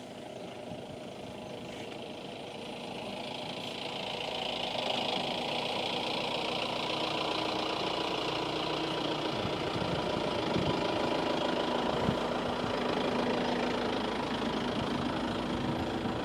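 A vehicle engine running steadily, growing louder over the first few seconds and then holding at a steady level.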